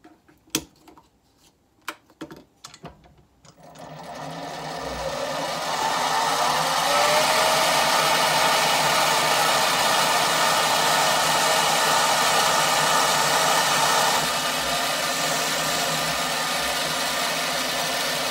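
A few clicks at the lathe controls, then a small bench metal lathe's motor starts and spins up with a rising whine before running steadily. The tool takes a turning cut down the diameter of an ebonite pen blank; the sound eases off slightly about two-thirds of the way through.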